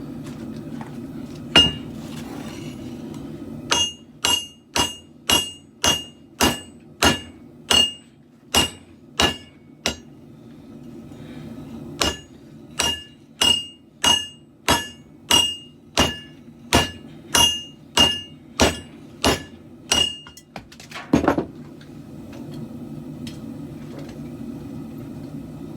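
Hand hammer striking a katana blade on an anvil, each blow ringing with a bright tone. One lone blow comes first, then a run of about ten steady blows at roughly three every two seconds, a short pause, and a run of about thirteen more. A heavier clatter follows near the end. A steady low rumble is heard before and after the hammering.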